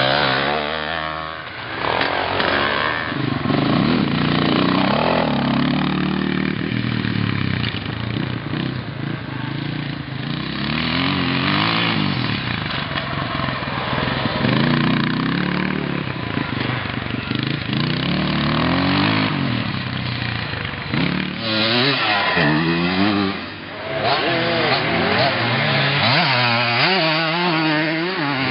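Vintage two-stroke enduro motorcycles revving hard, one after another. The engine pitch rises and falls with throttle and gear changes, with brief dips in level a couple of seconds in and again near the end.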